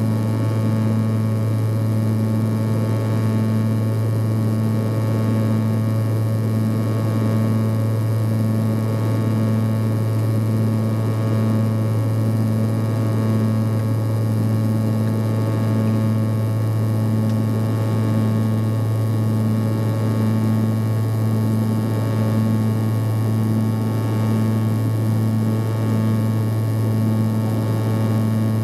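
Twin turboprop drone of an Antonov An-140 heard inside the cabin: a steady low propeller hum over engine whine and air hiss, with a beat that pulses slightly faster than once a second as the two propellers run slightly out of step.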